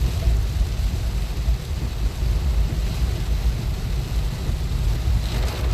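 Inside a car's cabin while driving slowly through heavy rain on a flooded road: a steady low rumble of the car and its tyres on the wet road under the hiss of rain on the car, with a brief louder hiss near the end.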